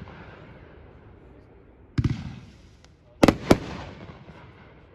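Winda "Rags to Riches" 500-gram firework cake firing: one sharp report about two seconds in, then two more a quarter second apart just past three seconds, each trailing off over about a second.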